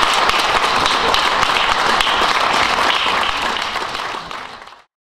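Audience applauding, many hands clapping together; the applause fades away over the last second or so and stops just before the end.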